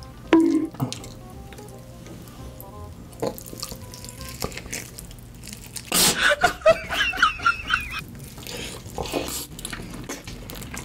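Wet sucking and slurping mouth sounds of eating sauced fried chicken off the bone, over quiet background music. A loud burst of laughter comes about six seconds in.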